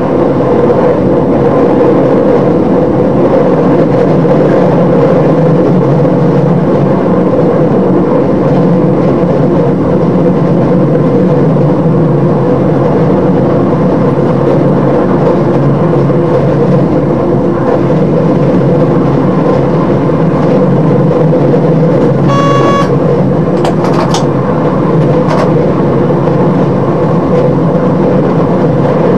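Class 628 diesel multiple unit heard from the driver's cab while running along the line: a steady drone of engine and wheels on rail. A short electronic beep sounds about 22 seconds in, followed by a couple of sharp clicks.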